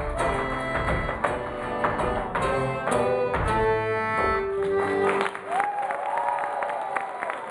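Fiddle and concertina playing a fast tune over a tap dancer's steps, ending on a long held note about five seconds in. The audience then cheers with whoops and applause.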